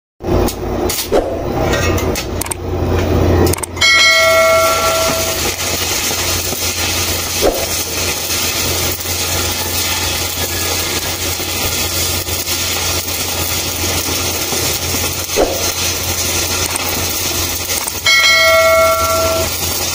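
Stick (SMAW) welding arc crackling and hissing steadily, over a low electrical hum. A bell-like chime rings about four seconds in and again near the end.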